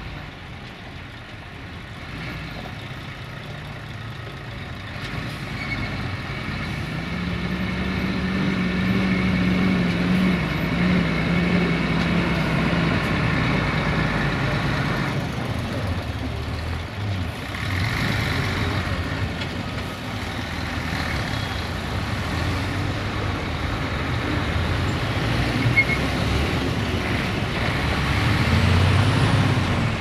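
Heavy loaded dump trucks driving past one after another on a gravel haul road, diesel engines pulling under load with tyre and gravel noise. The first truck is loudest as it passes about ten seconds in, and another comes close near the end.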